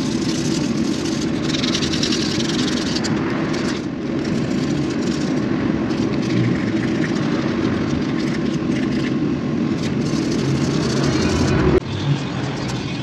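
A steady, motor-like hum runs throughout, with short spells of sandpaper rubbing on a wooden hammer handle. The sound changes abruptly near the end.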